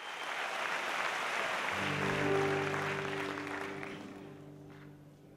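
Audience applause, fading away over a few seconds, while a keyboard starts a low held chord about two seconds in.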